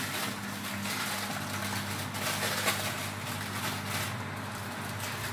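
Aluminium foil crinkling lightly as it is handled, over a steady low hum and rushing noise from the stove area.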